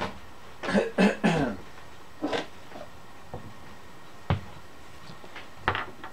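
A man coughing three times in quick succession, then once more more briefly. A couple of sharp knocks follow later on.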